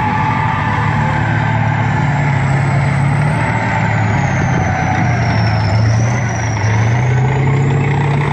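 Tracked armoured vehicle driving, its engine running loud and steady, with a high whine that dips about five seconds in and rises again.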